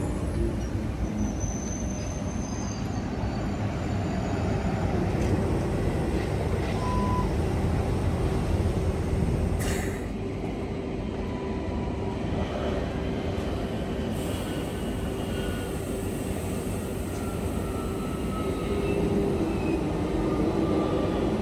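A train running past on the rails: a steady rumble of wheels and running gear with a held hum, and a few faint, thin wheel squeals.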